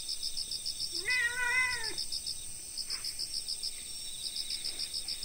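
Domestic cat giving a single meow about a second long, rising and then falling in pitch.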